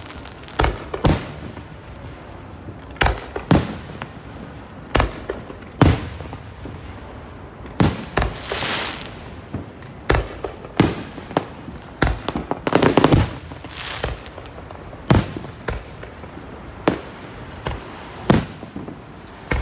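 Aerial fireworks shells bursting overhead: a string of sharp bangs, roughly one every second, with a rapid flurry of bangs about two-thirds of the way through.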